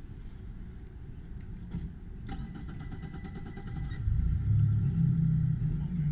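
Boat's outboard motor cranking with a fast run of ticks for about a second and a half, then catching about four seconds in and running steadily with a low rumble.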